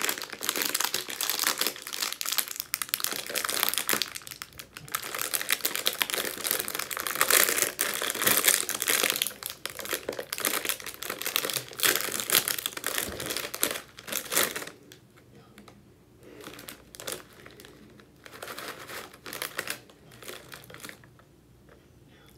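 Plastic snack wrappers crinkled and torn open by hand, with dense, continuous crackling for about the first fourteen seconds, then fewer, quieter crinkles.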